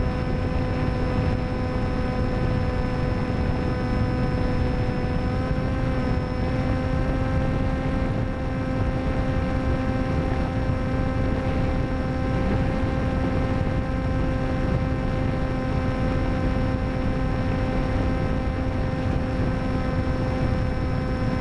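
Electric motor and 10x6 folding propeller of an FX-61 Phantom flying wing, heard from the onboard camera: a steady whine at cruise throttle, its pitch stepping up slightly about six seconds in, over heavy wind rush on the microphone.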